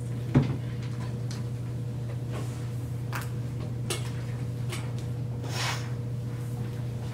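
Classroom room tone: a steady low hum with a sharp knock about half a second in, then scattered light clicks and a short rustle.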